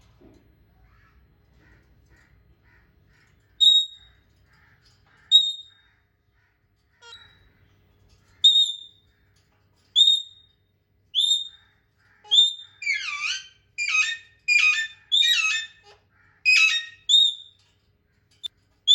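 Parrot whistling short, high single notes about every second and a half, then a quick run of harsher calls that fall in pitch, about two a second, over the last several seconds.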